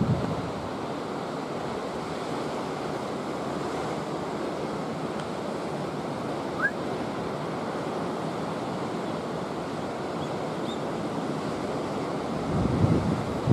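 Steady rushing outdoor background noise with no clear source, and wind buffeting the microphone near the end. A single short rising chirp sounds about halfway through.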